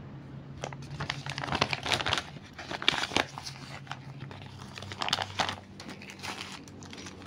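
Clear plastic packaging crinkling and rustling in irregular bursts as it is handled.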